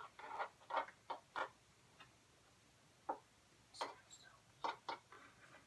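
Light, irregular clicks and taps of a utensil against a bowl while dish soap and salt are stirred, about eight to ten knocks with quiet gaps between.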